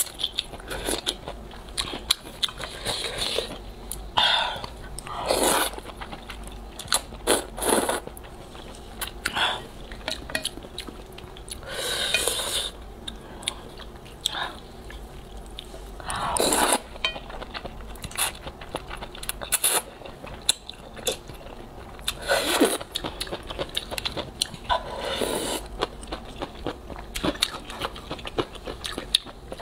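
Close-miked slurping and chewing of soupy rice noodles (luosifen). A long slurp comes every few seconds, with wet chewing and small clicks in between.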